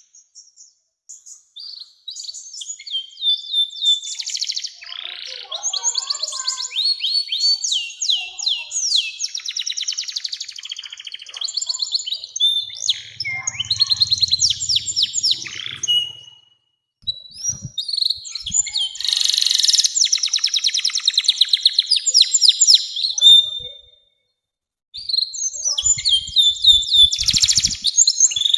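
Domestic canary singing a long song of rapid trills and rolls, phrase after phrase, with a few short pauses between phrases.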